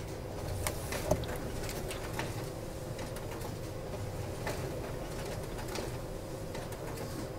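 Quiet room tone: a steady low hum with a faint, thin tone running through it, broken by a few faint, brief clicks.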